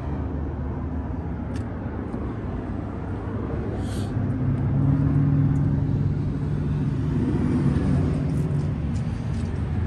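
A motor vehicle engine running steadily at low revs, growing louder about halfway through.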